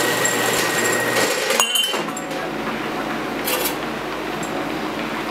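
Horizontal metal-cutting bandsaw running through a steel pipe. About a second and a half in, the blade finishes the cut and the cutting noise stops with a sudden clunk, followed by a few light metallic clinks.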